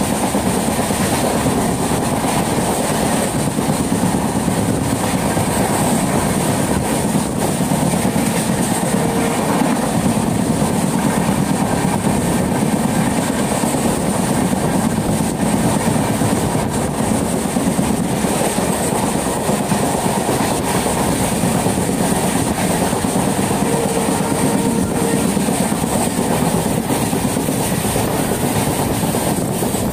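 Passenger train running along the track, heard from inside a carriage: a steady, loud rumble and clatter of the wheels on the rails.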